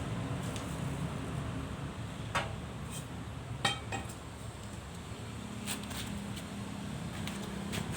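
Pieces of metal clinking against each other a few times. The two loudest clinks, about two and a half and three and a half seconds in, ring briefly. A steady low hum sits under them.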